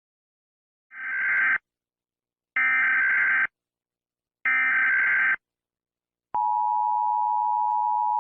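Emergency Alert System SAME header: three bursts of screechy digital data tones, about a second each, then from about six seconds in the steady two-tone attention signal (853 and 960 Hz), which cuts off abruptly.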